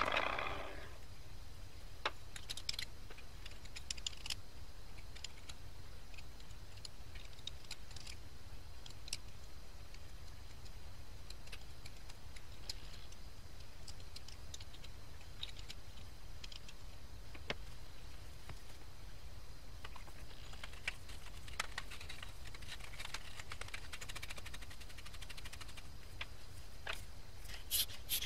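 Small handling sounds at a workbench: a cloth wiping a small brass pump part, then scattered light clicks and taps of small metal parts and tools, with a quick run of clicks near the end, all over a steady low hum.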